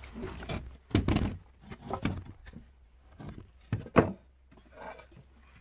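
Irregular knocks and clatters of wooden pieces and other objects being handled, the sharpest and loudest about four seconds in.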